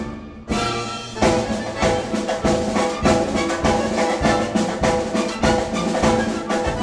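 Orchestral dance music with drums and brass over a steady beat. The sound drops briefly near the start and comes back in loud about half a second in.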